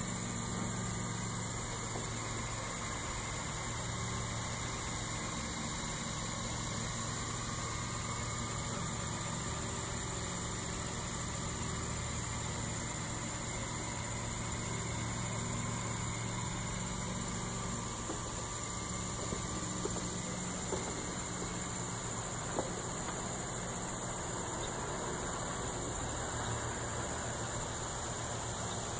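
Homemade cantilever laser engraver with a NEJE 6 W laser module running while it burns into wood: a steady mechanical hum from its stepper motors and cooling fan, which shifts slightly about halfway through. A few light ticks come about two-thirds of the way in, over a steady high insect-like drone.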